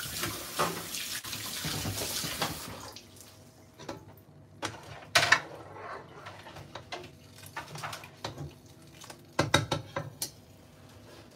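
Kitchen sink tap running as hands are rinsed, cut off about three seconds in. After it come a few sharp clinks and knocks, twice in short clusters.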